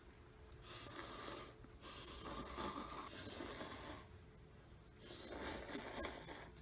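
Someone slurping ramen noodles three times, each slurp a second or two long.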